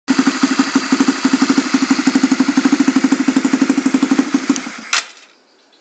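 Secondhand Honda CB150R single-cylinder engine running with an even, rapid pulse, then cut off about five seconds in, dying away with a click as it stops.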